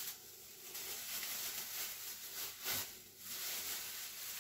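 Clear plastic bag rustling and crinkling as it is handled, with one sharper crackle a little past halfway.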